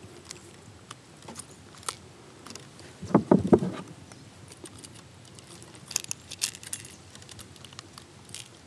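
Metal fishing pliers clicking and clinking against the hooks of a lure caught in a fish and a landing net, with a short, loud burst of thumps about three seconds in.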